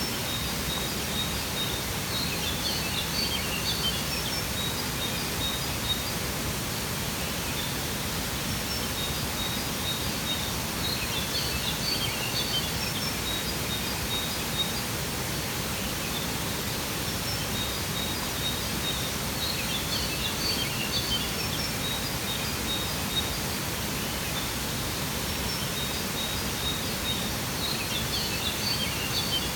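Steady rushing water of a waterfall, with clusters of high bird chirps recurring about every eight seconds and a thin, steady high trill between them.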